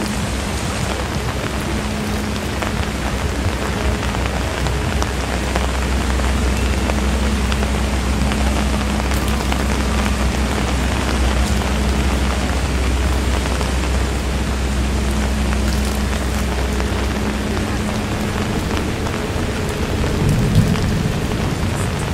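Rain falling steadily, a dense even hiss, over a constant low hum. About twenty seconds in, a brief low rumble swells and fades.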